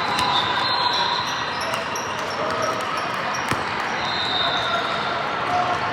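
Basketball game play: several short sneaker squeaks on the court and the thud of a ball, over a steady murmur of spectators.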